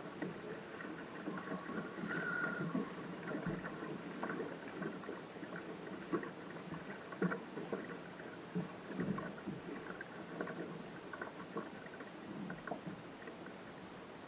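Water splashing and lapping against the bow of a small sailing dinghy under way, in an irregular run of small slaps.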